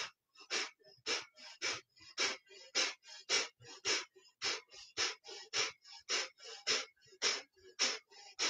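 Kapalabhati (skull shining breath): sharp, forceful exhales through the nose at a steady pace of about two a second, each followed by a short, quiet reflexive inhale.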